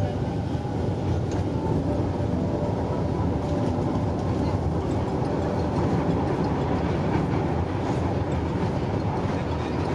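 Manila MRT Line 3 train running: a steady rumble of wheels on rails with occasional faint clicks.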